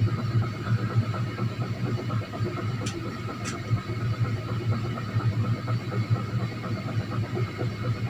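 Steady low mechanical drone of a running motor, pulsing slightly, with two brief high-pitched squeaks about three seconds in.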